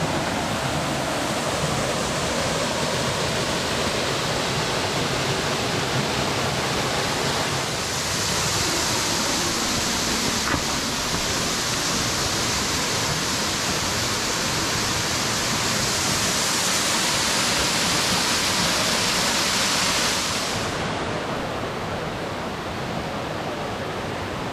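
Steady rushing of a waterfall and its stream splashing over rocks. The hiss turns brighter about 8 seconds in and drops back softer about 20 seconds in.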